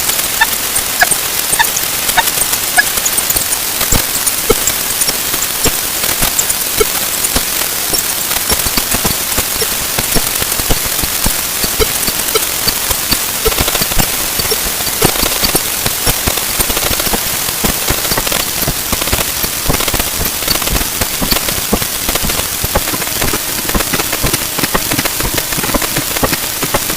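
Dense crackling hiss packed with countless overlapping clicks and ticks, which is how a stream of timer sound effects sounds when played 64 times faster than normal.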